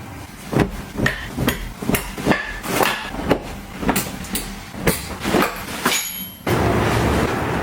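A run of sharp knocks and clacks, about two a second, as hard objects are handled and set down. After a short break near the end, a steady rushing noise starts.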